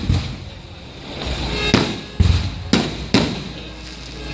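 Aerial firework shells bursting overhead: a run of about five sharp bangs and deep booms, each dying away before the next, roughly half a second to a second apart.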